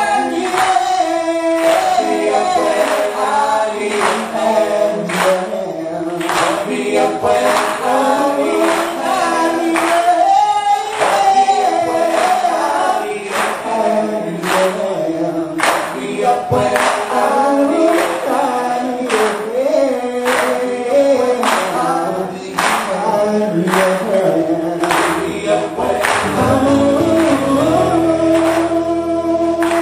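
Live gospel-style singing: a male lead and a small group of backing singers singing together to an acoustic guitar, over a steady beat of sharp strikes. Near the end the voices settle into one long held chord.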